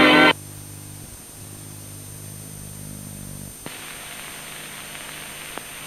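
A voice and music cut off abruptly just after the start, leaving dead air on an old off-air television recording. This is steady tape hiss over a low hum, with the hiss growing brighter about three and a half seconds in and a few faint clicks.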